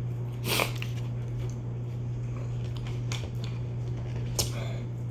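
Biting into a block of pepper cheese and chewing it: a few short, wet mouth noises, the loudest about half a second in, over a steady low hum.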